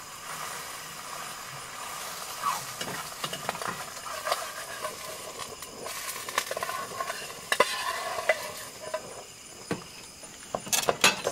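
Fried egg sizzling in a small aluminium camping pot on a portable gas stove, with a metal spatula scraping and clinking against the pot as the egg is worked and slid out. There are a few sharp clinks near the end.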